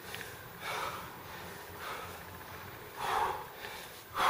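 Heavy breathing of a person exerting hard: forceful breaths about once a second, louder near the end.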